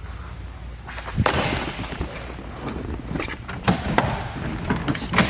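A series of knocks and thumps, the loudest about a second in, with more around four and five seconds in and rustling between them.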